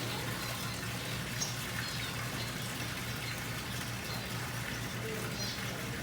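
Steady rushing noise of an indoor aviary with a low hum beneath it, and a few faint high chirps of small birds scattered through it.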